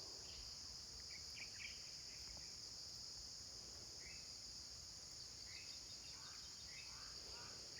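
A steady high-pitched chorus of insects, with a few faint short chirps scattered through it.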